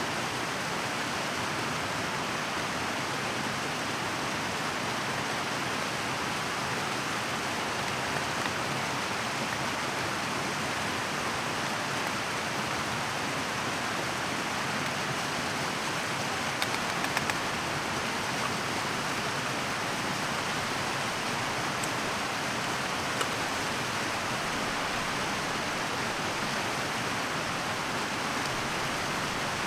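Mountain stream rushing steadily. A few faint clicks come through, about a third of the way in and again a little past halfway.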